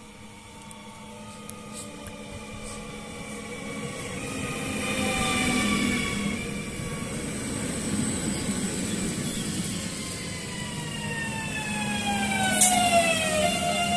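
Electric multiple unit pulling into the platform, growing louder as it nears. Its motor whine falls in pitch as it slows, over a steady high whine, with a sharp click near the end.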